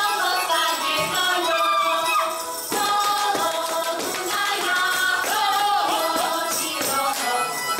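A live band playing lively Slovak folk dance music with a steady beat, and a voice singing along.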